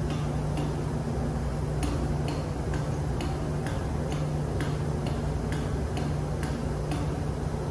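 Steady low hum of ship's engine-room machinery, with light regular ticks about twice a second over it.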